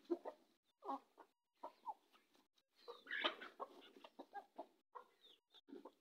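A flock of local chickens clucking as they feed: many short clucks overlapping, thickest about halfway through.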